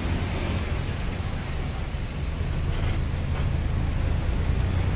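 Steady low rumble of motor traffic: engine and road noise.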